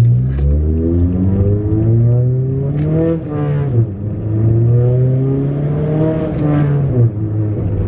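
Turbocharged four-cylinder engine of a straight-piped, muffler- and resonator-deleted 10th-gen Honda Accord under hard acceleration. The revs climb for about three seconds, fall with an upshift about four seconds in, climb again, and fall with another shift about seven seconds in.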